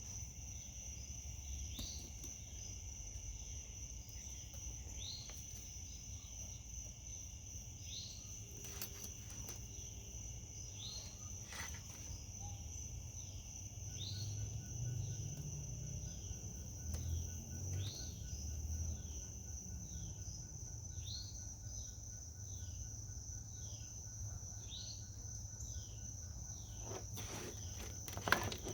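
Crickets trilling steadily, with a second call of short falling chirps repeating about once a second over a low background rumble. A few faint clicks come through, with a sharper knock near the end.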